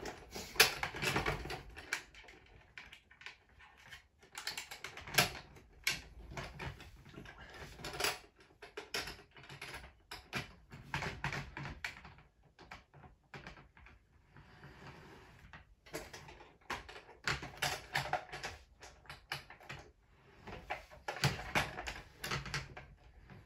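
Plastic clicks and clatters in irregular clusters as Playmobil toy train carriages are handled and set onto plastic track.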